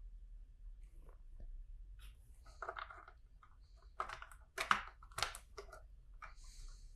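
Faint scattered clicking and rustling of plastic LEGO bricks being picked out and handled, with a few sharper clicks about four to five seconds in.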